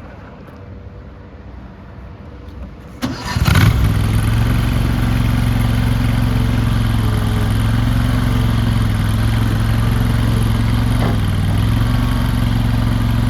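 Gasoline engine of a small wheeled skid steer loader cranked by its starter about three seconds in. It catches almost at once and then runs steadily.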